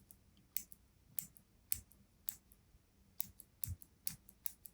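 Push button of a vintage Koh-I-Noor Rapidomatic 5635 mechanical pencil being clicked repeatedly in a click test: a series of sharp, faint clicks, about two a second at first, then quicker and in pairs in the second half.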